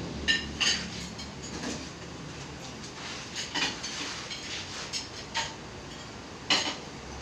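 Irregular sharp knocks and metallic clinks of hard objects striking, about a dozen over several seconds, the loudest just after the start and again near the end, over a low steady hum.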